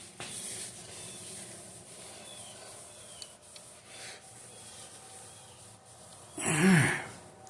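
Faint handling noises with a few small ticks, then a man's loud sigh, falling in pitch, about six and a half seconds in.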